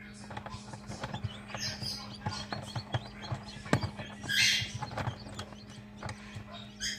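Newly hatched Wyandotte chick moving among the eggs and shell pieces in an incubator, with many small knocks and taps. It gives a few peeps, the loudest about four and a half seconds in, over the steady hum of the incubator.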